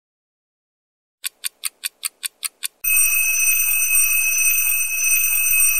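Alarm clock going off: a run of eight quick beeps, then from about three seconds in a loud, steady electronic ringing of several high tones held without a break.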